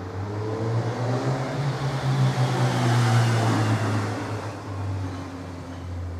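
A motor vehicle passing, its engine noise swelling to a peak about three seconds in and then fading, over a steady low hum.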